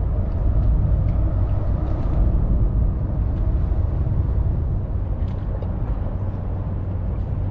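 Steady low rumble of outdoor ambience, with faint light ticks scattered through it.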